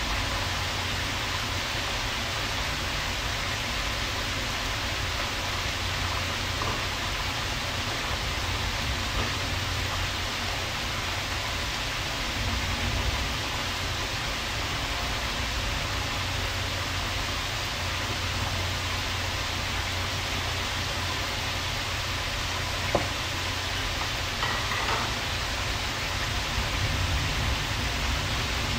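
Shrimp sizzling in a frying pan: a steady hiss, with a faint tick or two near the end.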